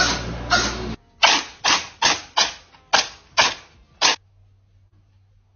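A cat sneezing over and over in quick succession, about two sneezes a second, nine in all. The sneezing stops a little after four seconds in.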